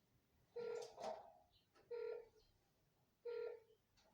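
Satellite finder meter beeping slowly: three short, evenly spaced electronic beeps about 1.3 s apart while the dish is turned gradually in search of the satellite. The slow rate means no strong signal yet; the beeping climbs when the signal is found. A brief rustle or clatter follows the first beep.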